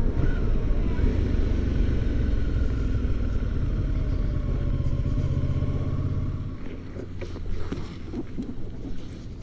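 Motorcycle engine running with a steady low rumble that drops away about two thirds of the way in, followed by a few light knocks.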